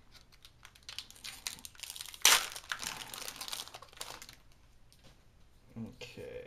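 Foil booster pack wrapper crinkling as it is torn open by hand, with the loudest crackle about two seconds in, then dying down as the cards are taken out.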